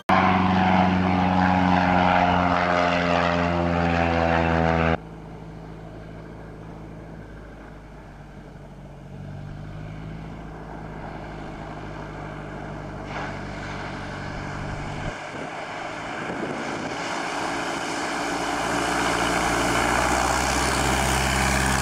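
Single-engine floatplane's piston engine and propeller running steadily. Loud at first, it drops abruptly about five seconds in, then grows steadily louder as the plane comes low over the water and skims along it on its floats.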